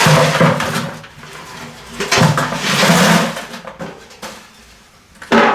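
Scrap laptop circuit boards and parts clattering and sliding in a plastic bucket, in two bouts each lasting over a second.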